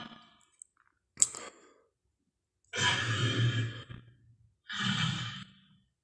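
Tyrannosaurus sound effects: a sharp click about a second in, then two breathy exhalations, each with a low rumble beneath the hiss and lasting about a second.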